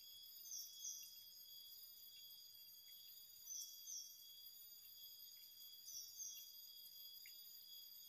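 Faint, steady chorus of insects holding several shrill high tones. A short double chirp repeats three times, about every two and a half seconds.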